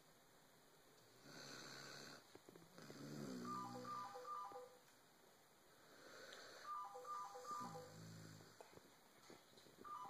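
A Great Dane snoring in deep sleep: two slow cycles of an airy inhale followed by a low, falling, rattly snore. A short electronic tune of repeated descending beeps plays twice, once over each snore.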